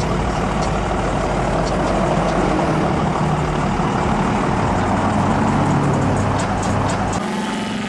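Lifted pickup trucks driving slowly past, a steady low engine hum over the broad noise of street traffic. The hum stops suddenly near the end.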